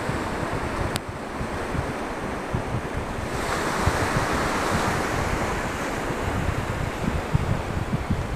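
Ocean surf breaking and washing in, with a wave swelling into a louder wash about three seconds in that fades over the next few seconds. Gusts of wind buffet the microphone underneath.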